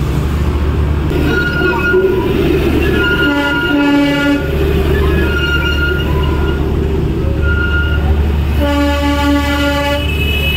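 Vehicle horns sounding in a series of toots: several short high single notes and two longer, lower, richer blasts, about three to four and eight and a half to ten seconds in. Underneath runs the steady low drone of the motorcycle being ridden.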